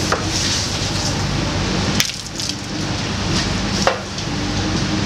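Steady rain falling on a boat's deck and canopy, over the low, steady hum of the boat's engine. Two brief knocks about two and four seconds in.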